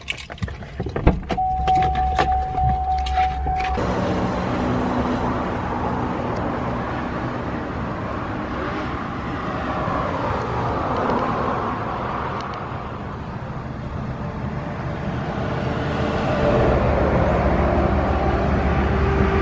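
Car on the move: steady engine hum and road noise. In the first few seconds there are some clicks and a short steady whine.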